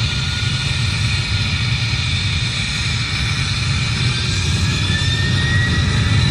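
Boeing 747-400 freighter's four jet engines running at high power on the takeoff roll: a steady low rumble with a faint whine that rises slightly in pitch near the end.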